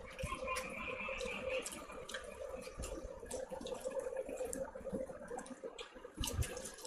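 Close-miked eating sounds: chewing and wet mouth clicks while eating poori with chicken curry, and fingers squishing poori in the curry, over a steady faint hum.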